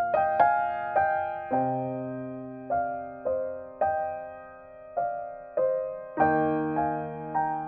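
Slow, gentle piano music: single notes struck about once or twice a second, each left to ring and fade over lower held notes.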